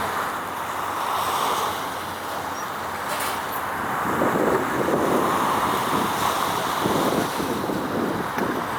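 Wind buffeting the microphone as an uneven rushing noise, with gusts growing stronger about four seconds in.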